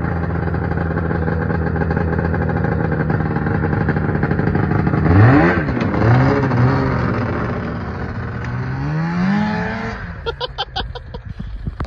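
Arctic Cat Wildcat 700 EFI snowmobile's two-stroke engine idling steadily, then revved in several quick blips about five seconds in. It pulls away with the note rising once more, then fades as the sled rides off, with a few sharp clicks near the end.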